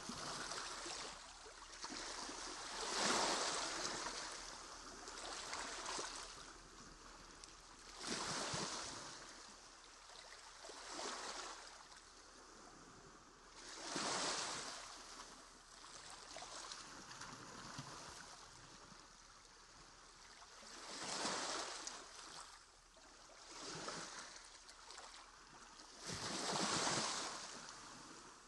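Water lapping and splashing against sea kayak hulls, rising and falling in irregular swells every couple of seconds.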